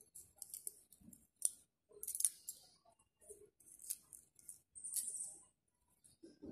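Cloth rustling and brushing as the fabric is handled and shifted by hand, in short irregular swishes with a few light clicks.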